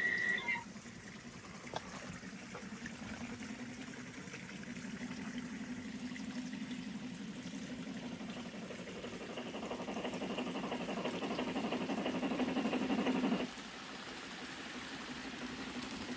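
Gauge 1 model steam locomotive running on its track: a short high tone ends just after the start, then a steady low running hum with hiss grows louder as the train nears and cuts off suddenly about 13 seconds in.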